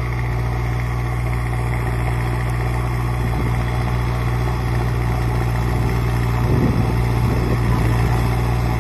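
Mahindra Arjun 555 Power Plus tractor's four-cylinder diesel engine running steadily under load while pulling a harrow through ploughed soil.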